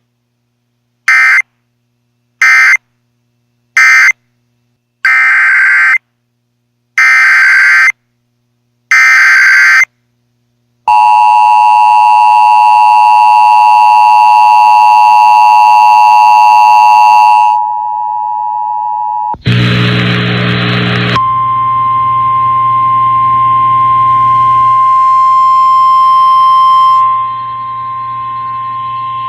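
Emergency alert signals from a weather radio broadcast. First come six short screeching bursts of digital SAME data code. Then the two-tone Emergency Alert System attention signal sounds for about six seconds, followed after a short burst of noise by the steady single-tone weather radio warning alarm.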